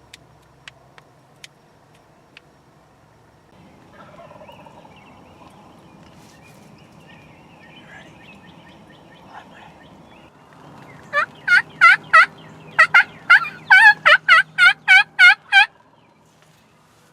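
Wild turkey calling: a series of about fourteen loud, clear notes at about three a second, in a short run of four and then a longer run of about ten, starting a little past the middle.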